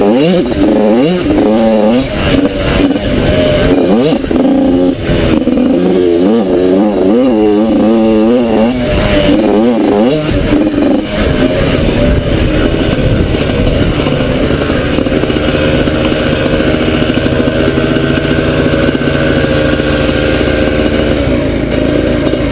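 Yamaha YZ85 two-stroke dirt bike engine ridden hard on a trail. Its pitch rises and falls repeatedly with throttle and gear changes for the first ten seconds or so, then holds steadier as the bike eases off and slows.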